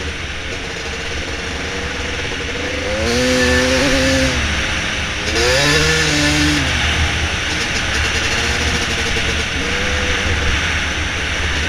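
Dirt bike engine running while riding, revving up twice, about three and about five seconds in, under heavy wind rush on the microphone.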